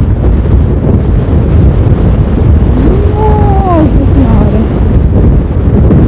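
Strong wind buffeting the microphone on a moving motorcycle: a loud, steady rush with deep rumbling that covers nearly everything else.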